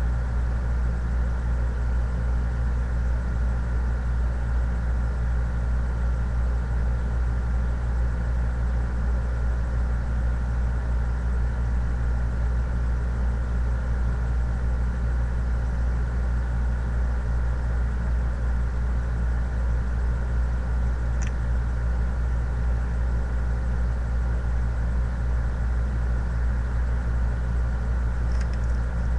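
A steady low hum with a faint, even whine above it, unchanging in level.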